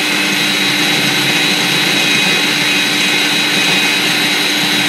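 Small electric food processor running steadily with a constant high motor whine. It is chopping a banana-and-nut mix so thick that the mix stays up while the blade spins beneath it.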